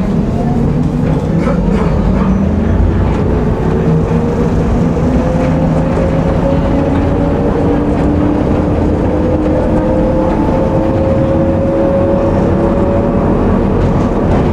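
Electric tram running on its rails and picking up speed, its traction motors whining in tones that rise slowly in pitch over a steady rumble of wheels on track, with a few short clicks.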